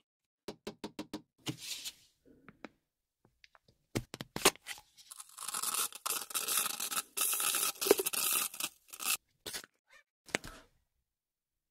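Aerosol can of Gillette shaving foam hissing as foam is squirted into a plastic syringe barrel: a quick run of small clicks and a short spurt, then one long hiss of about four seconds, then a few short spurts near the end.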